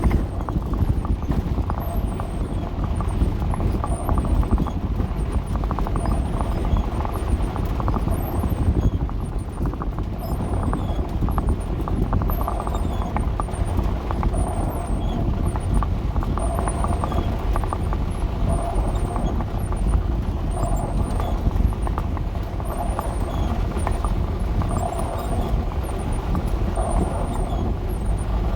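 Dodge A108 van driving on a rough dirt road: a steady low rumble of engine and road, with many small knocks and rattles throughout.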